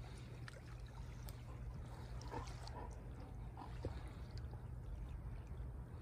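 Small waves lapping softly at the shoreline, with a few faint splashes, over a steady low rumble.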